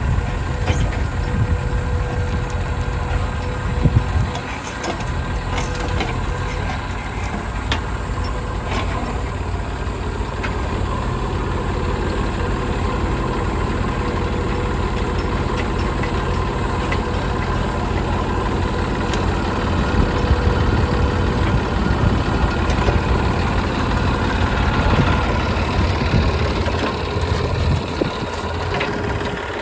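Diesel engine of a JCB 3DX backhoe loader running steadily while it works, rising a little about twenty seconds in, with a few sharp knocks.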